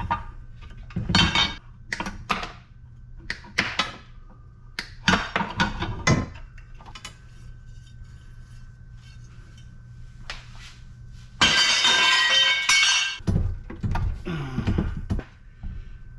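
Metal scrap parts from a light fixture being handled and taken apart: a string of separate clinks and knocks, then a longer dense clatter about twelve seconds in.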